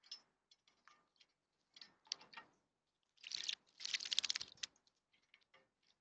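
Birds bathing in a shallow bird-bath bowl, fluttering their wings in the water: short bursts of rapid splashing and pattering, the two longest in the middle, with light drips and ticks between.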